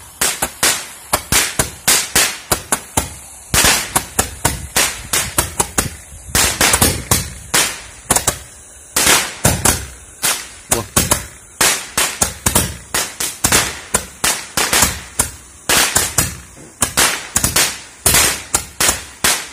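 Handheld roman-candle fireworks firing: a dense, irregular run of sharp cracks and pops, several a second, that keeps going without a break.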